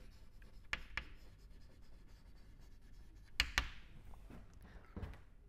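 Chalk writing on a blackboard: faint scratchy strokes broken by sharp taps of the chalk, the loudest a quick pair about three and a half seconds in.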